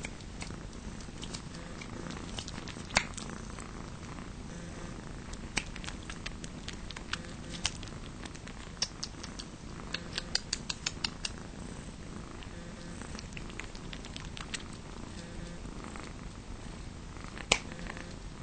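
Steady purring of Abyssinian cats as the kittens nurse on their mother, broken by scattered small sharp clicks, with a quick run of them about ten seconds in and a louder one near the end.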